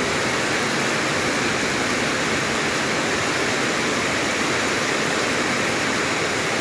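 Heavy rain pouring down steadily on open ground, an even hiss that holds at the same level throughout.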